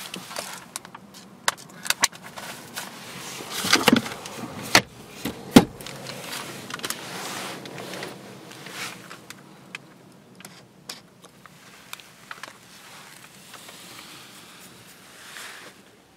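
Handling noises in a car's cabin: the owner's manual in its plastic wallet rustling, with a run of sharp clicks and knocks, the loudest a little over five seconds in, growing sparser towards the end.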